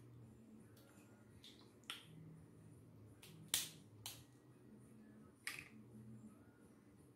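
Boiled seafood shells being cracked and pulled apart by hand: a few sharp snaps and clicks, the loudest about three and a half seconds in.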